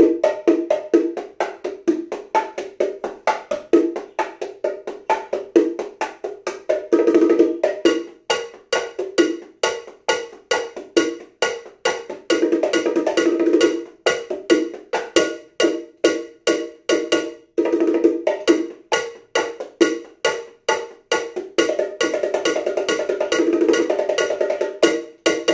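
Bachata rhythm on a pair of bongos played by hand together with an LP cowbell struck by a bass-drum foot pedal: a steady, even run of strokes with flurries of fast bongo strokes several times.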